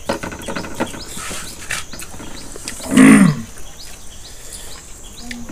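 A short, loud, low vocal sound falling in pitch about three seconds in, over a steady series of high, repeated chirps.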